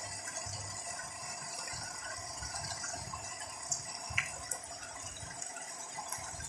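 Heavy rain falling steadily, with a few sharp clicks of drops or splashes about four seconds in.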